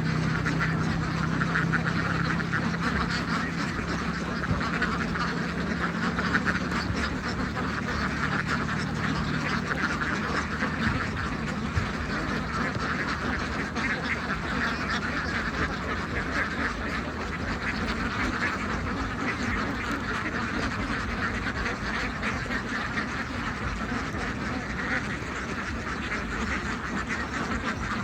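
A large flock of domestic ducks quacking continuously, many calls overlapping into a steady chatter.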